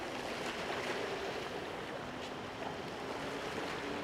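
Steady outdoor ambience of calm sea water and wind, with a faint low hum that comes and goes.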